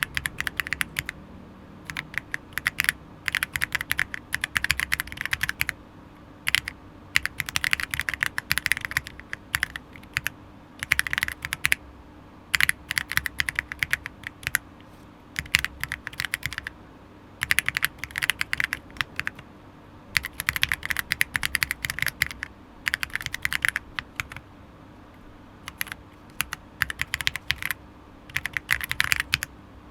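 Fast typing on a gasket-mounted Monka 6067 aluminium keyboard with Akko CS Jelly White linear switches and KOL Pixel keycaps. The keystrokes come in quick bursts of one to two seconds, with brief pauses between them.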